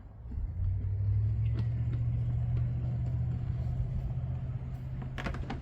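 Low, steady engine rumble of a motor vehicle, swelling in at the start and easing off after a few seconds. A couple of sharp clicks come near the end.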